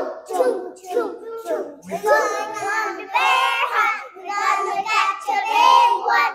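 A young child's high voice singing and chanting without clear words: short repeated syllables for about two seconds, then longer drawn-out sung notes.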